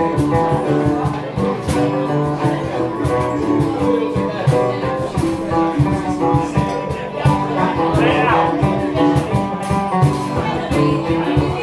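Several acoustic guitars strumming and picking together in a live band's instrumental passage.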